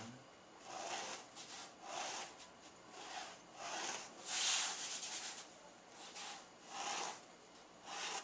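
Felt-tip marker drawn across a thick foam sponge sheet in short strokes, about one a second, the loudest about halfway through.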